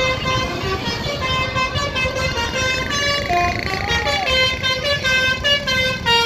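Agra Mas Metropolis bus's telolet 'basuri' musical horn playing a tune of quick stepped notes, the basuri melody played in reverse order, over a low rumble of traffic.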